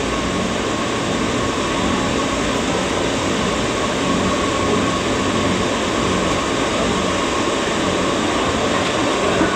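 Steady rumble and hiss of a Muni light-rail car running, heard from inside the passenger car, with a faint steady whine over it.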